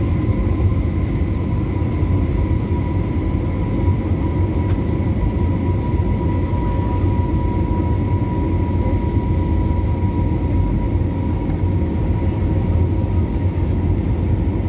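Airbus A320 cabin noise in flight: a steady, unbroken rumble of jet engines and airflow, with a thin steady whine above it.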